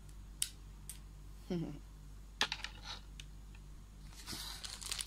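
A few light plastic clicks as a pair of sunglasses is folded and handled, then rustling and crinkling of the packaging pouch for the next pair near the end.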